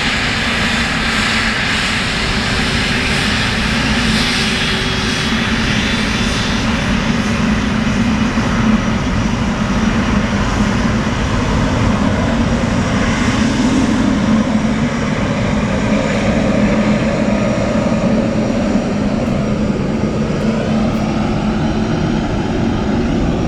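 Boeing 777F freighter's twin GE90 turbofans running at taxi power as the jet rolls past close by: a steady, loud jet rush with a low hum and a high whine that eases after the first several seconds.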